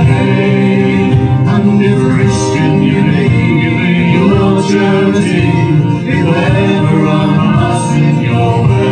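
Live folk band playing an English folk song, with singing over the instruments.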